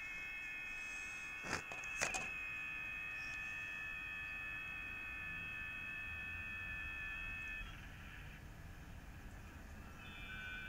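Several FT8 digital-mode signals on the 10-metre band (28.074 MHz), received on an Eton G6 Aviator portable radio: overlapping steady tones over band hiss. The tones stop together about three-quarters of the way through, leaving only hiss, and a new set starts near the end; this marks the break between 15-second FT8 transmit periods. Two sharp clicks about two seconds in.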